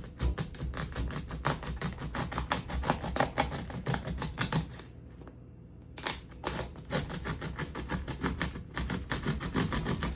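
Disposable plastic pepper grinder being cut and pried open: rapid clicking and cracking of the plastic, about five or six clicks a second, with a pause of about a second halfway through.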